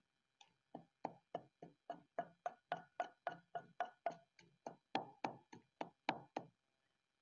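Wooden pestle pounding mint, guava and coriander into a wet chutney paste in a stone mortar: steady, evenly spaced knocks, about three or four a second, which stop about six and a half seconds in.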